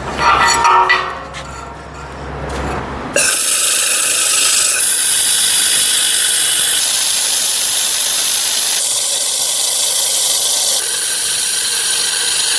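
Electric arc welding on the steel frame: a steady crackling hiss of the arc, starting abruptly about three seconds in.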